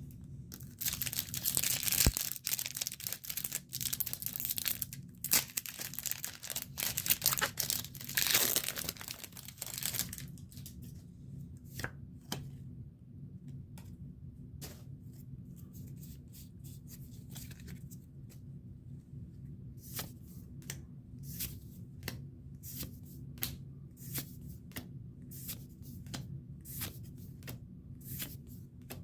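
A foil Pokémon card booster pack being torn open and crinkled for several seconds, then the cards being slid and flicked through one at a time, with short snaps about twice a second near the end.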